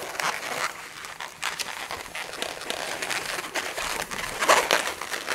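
Purple latex modelling balloon rubbing and squeaking in the hands as it is twisted into a loop twist: an irregular run of rubbery crackles and creaks, loudest about four and a half seconds in.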